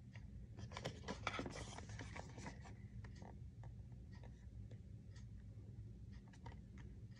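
Faint scraping and rustling of a small cardboard box being handled as its outer sleeve is slid off, with scattered light clicks of fingers on the card, busiest in the first few seconds.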